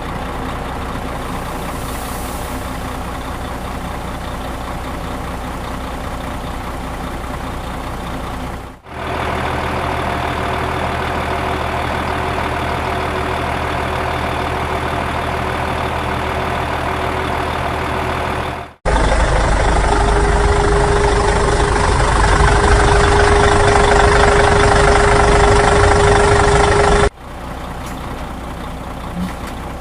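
Heavy vehicle engines running steadily, in four spliced stretches that cut sharply from one to the next about nine, nineteen and twenty-seven seconds in. The third stretch is the loudest and carries a steady high whine over the engine.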